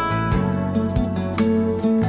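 Background music led by strummed and plucked guitar, with notes changing every fraction of a second over a steady beat.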